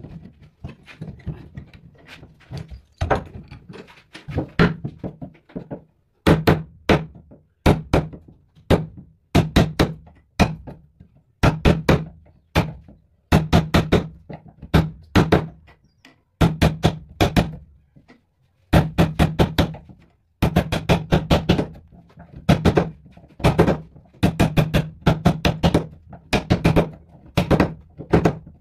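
A wood chisel being struck to chop a mortise into a thick clamped wooden block: short runs of rapid, sharp knocks with a dull wooden body to them, about one run a second. The knocking starts about six seconds in, after quieter handling and tapping.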